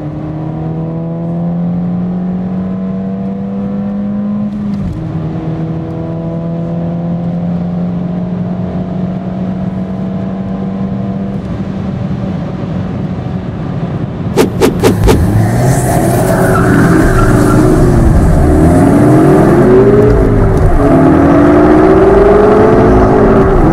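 Cabin sound of a 2016 Ford Fiesta ST's 1.6-litre turbocharged four-cylinder accelerating hard in the upper gears, with a drop in pitch as it shifts up about five seconds in. Past the middle come a few sharp clicks, then a louder sound of repeated rising and falling tones.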